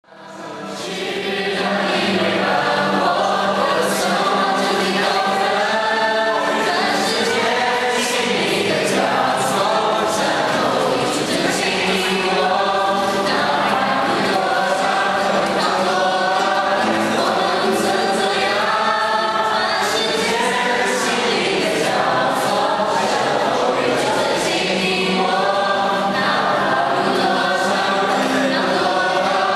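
A large group of young voices singing a song together, accompanied by a strummed acoustic guitar. The sound fades in over the first second or so.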